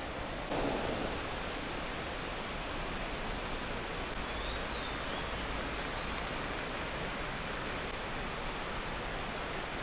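Shallow rocky river rushing steadily over stones: an even, unbroken wash of flowing water.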